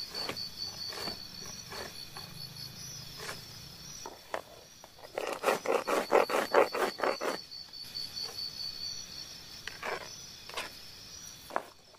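Knife chopping a red onion on a plastic cutting board: a few single cuts, then a quick run of about a dozen strokes in the middle, then a few more cuts near the end. A steady, high insect buzz goes on underneath.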